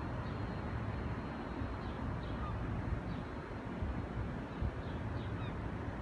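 Steady low outdoor rumble of city background, with a scattering of short, high bird chirps from about two seconds in.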